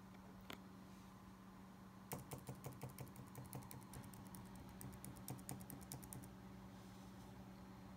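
Rapid series of about twenty light clicks over some four seconds as a computer's volume-up key is pressed again and again, turning the volume to full, over a faint steady low hum.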